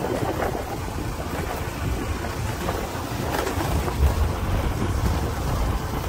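Wind buffeting the microphone on a moving scooter, with the scooter's running motor underneath as an uneven low rumble.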